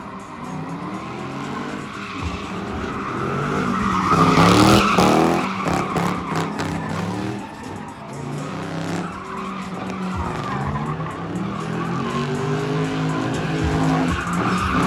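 Car engine revving up and down repeatedly while its tires squeal in a sustained skid, as in burnouts and slides at a tire-shredding event. It is loudest about four to five seconds in.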